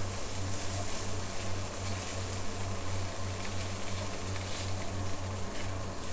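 Diced chicken, ham, carrot, garlic and ginger sizzling in hot oil in a steel wok, with a metal spatula scraping and tossing the food against the wok. A steady low hum runs underneath.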